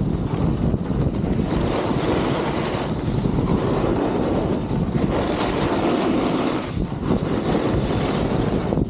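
Wind rumbling on the camera's microphone during a fast snowboard run, with the hiss of the board sliding over packed snow swelling and easing.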